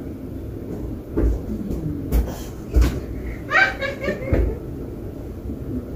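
A few dull thumps and knocks in a room, with a child's voice briefly about three and a half seconds in.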